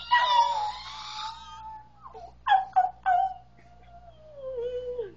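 Baby vocalising in high-pitched squeals and cries: a squeal at the start, a few short cries about two and a half seconds in, then a long cry sliding down in pitch.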